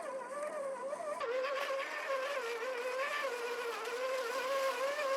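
Electric drive motor and gearbox of a 1/10-scale RC4WD Toyota Xtracab crawler whining, its pitch wavering up and down as the throttle changes.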